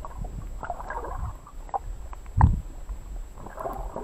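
Muffled water sloshing and gurgling heard through a camera held just below the surface, over a low rumble. There is one heavy thump about two and a half seconds in.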